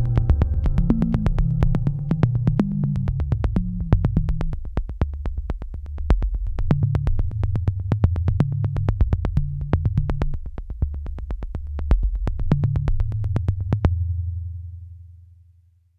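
Electronic music with a heavy synthesizer bass line and a sharp ticking beat, played through a Roadmaster Bass 16 portable active speaker with a 6-inch woofer. The beat stops about 14 seconds in, and a held bass note fades out.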